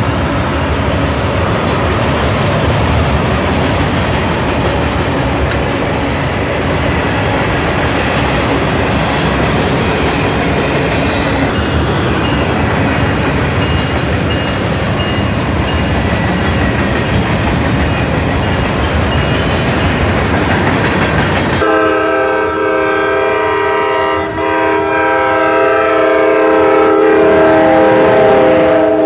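Freight train rolling past on the rails, a steady rumble and rattle of wheels. About 22 seconds in, an arriving New Jersey Transit train's multi-chime air horn starts a long, loud blast that runs on as its cab car passes close, with a brief break about two seconds into it.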